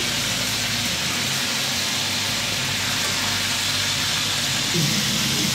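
Chicken wings deep-frying in a wok of hot sunflower oil: a steady sizzle of bubbling oil.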